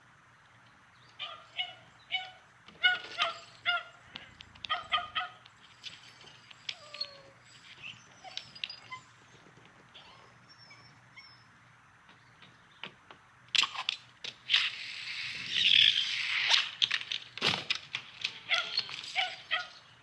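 Animated-film sound effects: runs of short, pitched squeaks or honks, about two a second. About two-thirds of the way through comes a louder stretch of rustling with sharp clicks and knocks, then a few more squeaks near the end.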